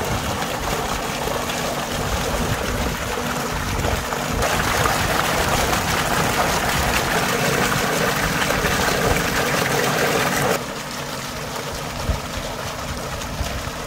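Water gushing from a pipe and splashing into a full concrete tank: a steady rushing sound with a faint low hum beneath. It grows louder about four seconds in and drops back near ten seconds.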